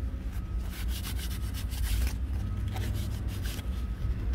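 A towel rubbing a small plastic car door-handle bowl cover in quick, uneven back-and-forth wiping strokes, cleaning it with alcohol to take off grease.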